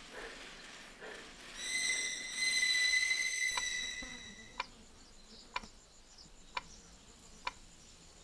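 A high, steady whistle-like tone sounds for about two seconds. Then a station wall clock ticks about once a second, five ticks in all.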